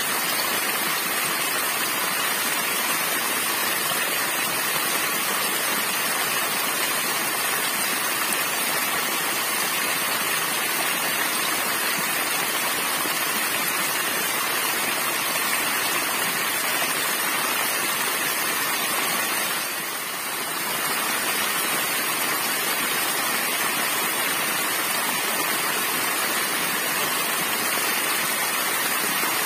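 Small waterfall spilling in several streams over a rocky ledge and splashing onto the rocks below: a steady rush of falling water, dipping slightly for a moment about two-thirds of the way through.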